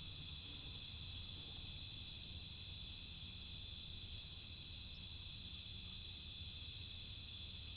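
Night chorus of crickets: a steady, unbroken high-pitched trilling, over a low hum.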